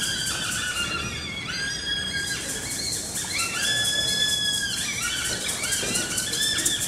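Eerie music or sound-effect cue: high, held whistling tones that step from one pitch to another, several overlapping at once.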